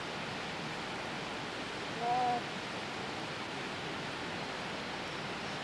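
Steady, even hiss. About two seconds in there is one short, pitched, voice-like sound lasting under half a second.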